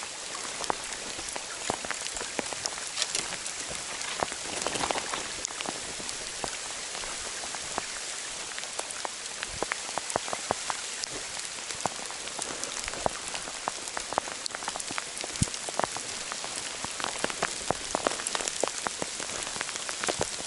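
Rain mixed with sleet falling: a steady hiss dotted with many sharp, irregular ticks of drops striking close by.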